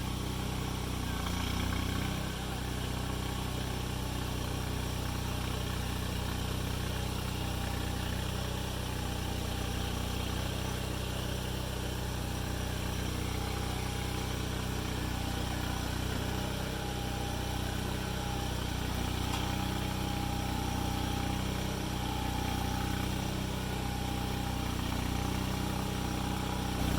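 An engine running steadily at idle, with a faint steady whine joining about halfway through.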